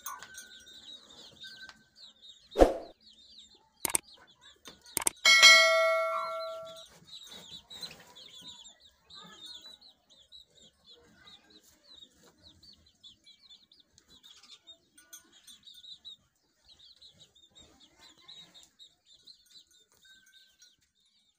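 Birds chirping with short, high calls that go on throughout. A few sharp knocks come between about two and five seconds in, and right after them a loud metallic clang rings out and fades over a second or two.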